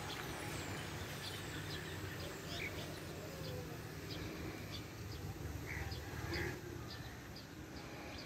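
Small birds chirping now and then, with short high calls scattered throughout, over a faint low outdoor rumble.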